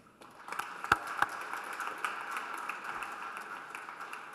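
Audience applauding, starting about half a second in and slowly fading.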